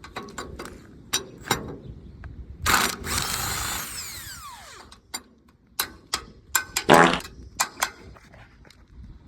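Hand and power tools at work: scattered clicks and knocks, and a power tool runs about three seconds in, then winds down with a falling whine. A short buzzing burst from a tool comes about seven seconds in.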